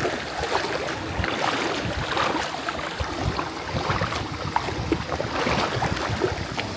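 Sea water splashing and lapping, with many small irregular splashes over a steady rush of water noise.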